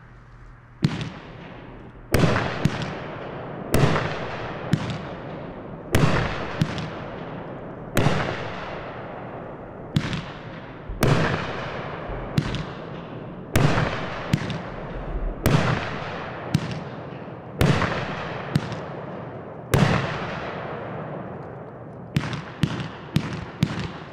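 Powder Keg "Sea Monster" multi-shot consumer firework going off: sharp reports every one to two seconds, each with a long fading tail, and a quick run of four shots near the end.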